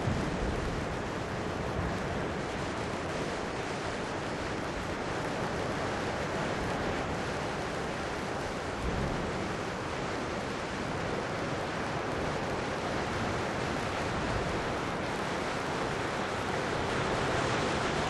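Ocean surf washing below coastal rocks, a steady rushing noise that swells and ebbs slowly and grows a little louder near the end.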